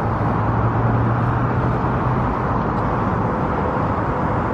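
Steady hum of city traffic, with a low droning tone that fades out about halfway through.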